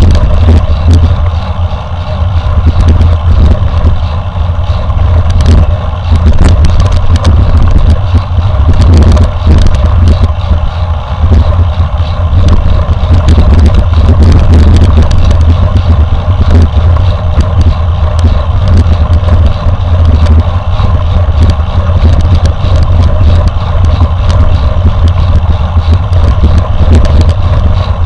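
Mountain bike ridden at speed, heard on the rider's camera: heavy wind rumble on the microphone with constant rattling and knocking from the bike over rough ground.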